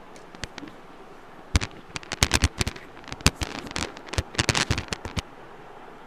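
Irregular clicks and clacks from handling the opened laptop's plastic chassis and metal parts, coming in a quick, uneven cluster from about one and a half to five seconds in.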